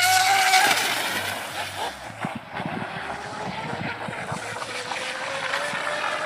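High-revving small nitro engine of an RC model speedboat, a loud whine up close at first that drops a little in pitch about a second in as the boat runs off. It then carries on as a fainter, steady whine that slowly climbs in pitch, with a few low thumps in the middle.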